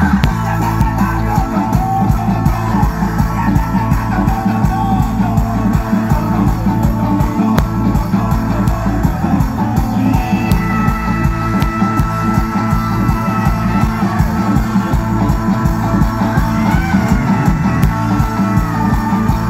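Live band playing an instrumental passage, with heavy bass and drums and a guitar; long held high notes come in about halfway through.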